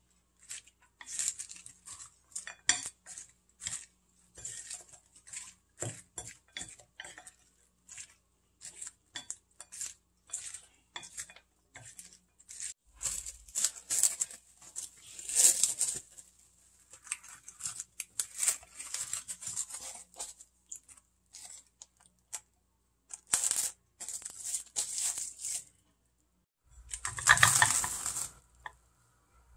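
A metal utensil clinking and scraping against a glass bowl in quick, irregular strokes, mixing a raw egg into sliced onion and garlic chives. Near the end comes a longer, louder clatter.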